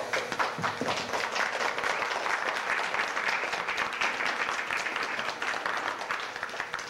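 Audience applause: many hands clapping together, starting suddenly and keeping up steadily, thinning a little near the end.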